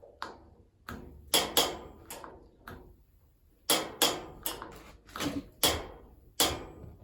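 Gas heater's spark igniter clicking repeatedly, about a dozen sharp snaps at uneven intervals, as the control knob is worked to light the pilot flame.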